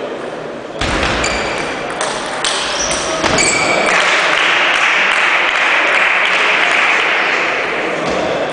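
Table tennis rally: the ball clicks sharply off the paddles and table several times in quick succession. Then a steady hiss of spectator applause follows for about four seconds after the point ends.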